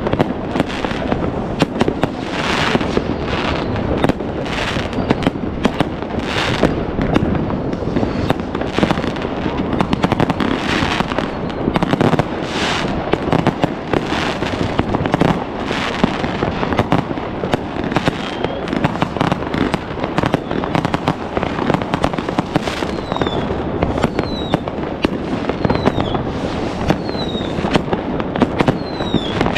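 Many New Year's Eve fireworks going off at once: a dense, continuous barrage of bangs and crackling from rockets, batteries and firecrackers. In the last third, short falling whistles repeat about once a second over the bangs.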